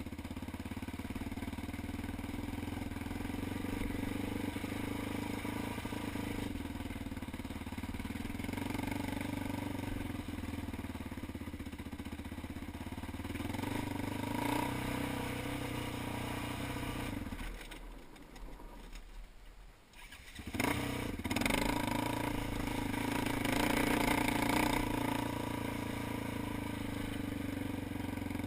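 ATV engine running steadily. About two-thirds of the way through, the sound briefly drops away to near quiet, then comes back louder.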